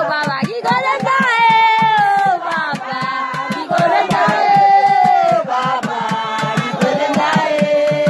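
A crowd of men and women singing together in unison, with steady hand clapping, about four claps a second, keeping time under the long held notes.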